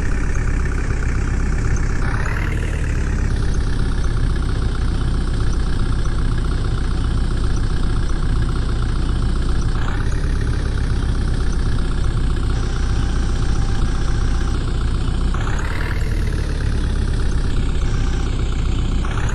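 JCB backhoe loader's diesel engine running steadily, revving up briefly several times, about 2, 10, 16 and 19 seconds in.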